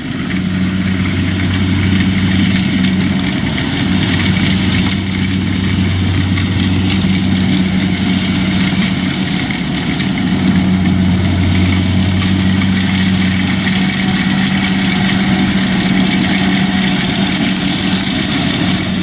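Kubota DC-60 combine harvester's diesel engine and machinery running steadily under load while cutting rice, a constant low hum over a dense mechanical rush.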